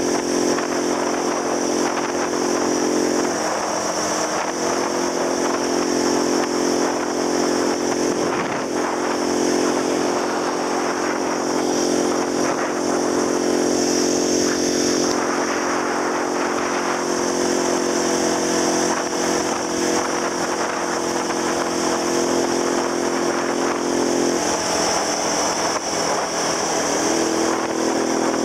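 Small motor scooter engine running steadily at road speed, its note stepping slightly in pitch a few times, with a rush of wind and road noise.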